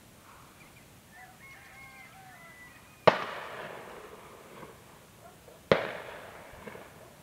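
Two loud gunshots, about two and a half seconds apart, each echoing away over a second or more. A bird chirps a few times faintly before the first shot.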